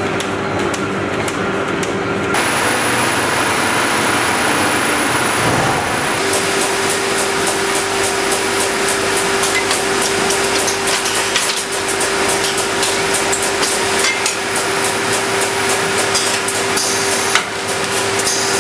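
Paper-converting machinery running: a steady machine hum with a held mid-pitched tone and fast, regular clacking as the line sheets and handles reams of office paper.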